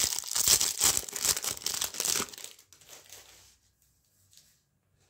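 Crinkling of a surprise trading-card pack's wrapper being handled, dense for about two seconds and then dying away to a few faint rustles.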